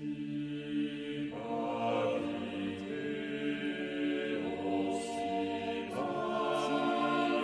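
Slow, chant-like vocal music of long held chords, changing chord every couple of seconds.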